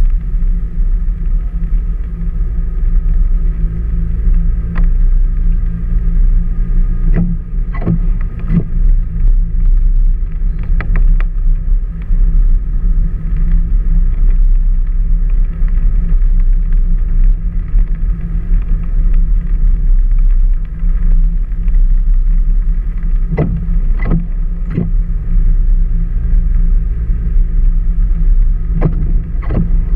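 Vehicle driving slowly along a wet gravel road: a steady low rumble of engine and tyres, with scattered knocks and rattles in small clusters as it goes over bumps.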